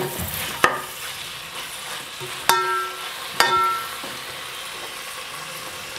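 Metal spoon stirring fried omena (Lake Victoria sardines) with onions and tomatoes in an aluminium pot, clinking against the pot four times with short metallic rings, the last two ringing longest, over a steady sizzle of frying.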